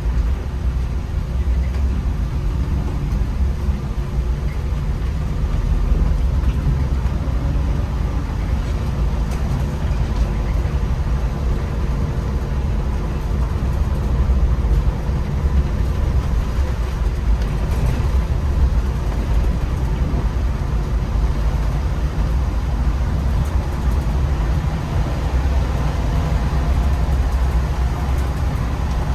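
MAN Lion's City articulated city bus under way: a steady low engine and road rumble inside the cabin, with a faint steady whine above it.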